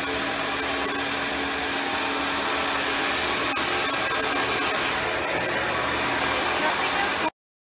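Small drone's electric motors and propellers whirring steadily and loudly at close range, with a steady hum running through the noise. The sound cuts off abruptly near the end.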